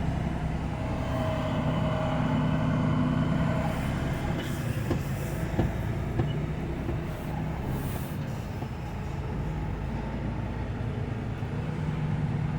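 A vehicle engine running steadily with a low, even hum, and a few light clicks partway through.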